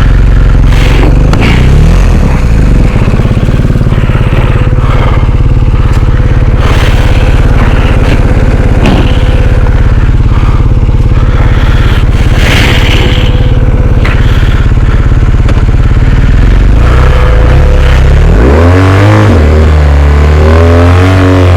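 Motorcycle engine running steadily on a rough gravel track, then revved up and down several times near the end.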